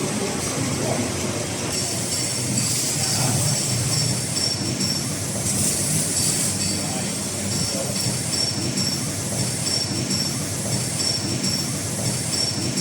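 Steady mechanical noise, with a thin high whine that comes and goes in short pulses.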